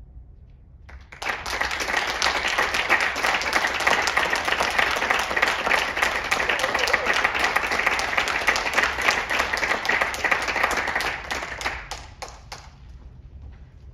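Audience applauding: it starts about a second in after a brief hush, holds steady, and dies away to a few scattered claps near the end.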